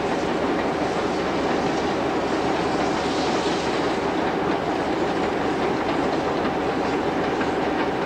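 Victorian Railways R class steam locomotive R766 hauling a train of carriages: a steady rumble and clatter of the train running along the line.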